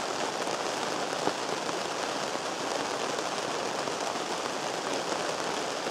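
Steady rain falling on a canvas tent, heard from inside the tent: an even, dense patter that stays at the same level throughout.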